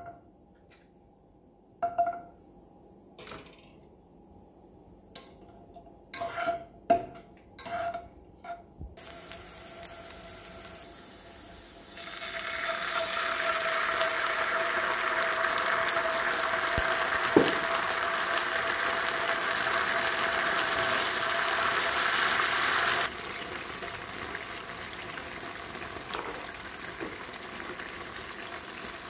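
Carrot slices frying in oil in a nonstick pan. A few sharp clinks come first, then the oil starts to sizzle, with loud sizzling from about twelve seconds in, after gravy goes into the hot pan. The sizzling drops to a quieter hiss near the end.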